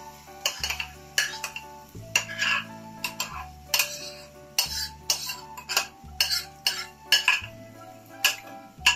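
Rice poured and scraped from a glass bowl into a frying pan, the glass clinking against the pan in repeated sharp knocks with a grainy hiss of falling rice, over background music.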